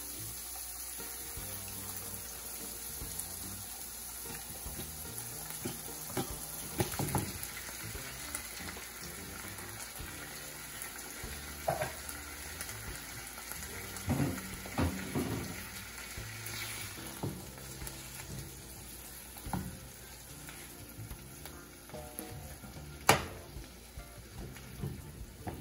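Onions and bell peppers sizzling in hot oil in a frying pan, a steady hiss throughout. Scattered clatters and knocks come as canned jack mackerel in tomato sauce goes in and is broken up and stirred with a spoon, with one sharp knock of the spoon near the end.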